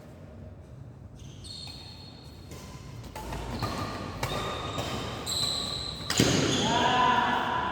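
Badminton play in a sports hall: shoe squeaks on the court floor, and one sharp, loud racket hit on the shuttlecock about six seconds in.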